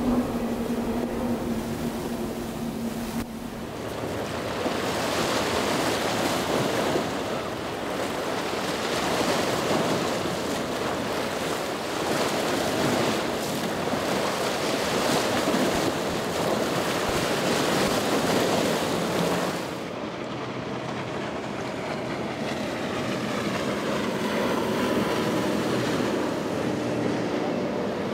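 Motorboats running through rough inlet water: rushing spray and waves with wind on the microphone, over a steady engine hum. The sound changes suddenly about two-thirds of the way through, to a quieter, duller rush with the engine hum clearer.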